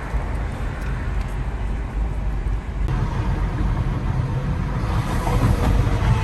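Steady low rumble of road and engine noise inside a moving car, with a sudden change about three seconds in, after which the rumble is a little louder.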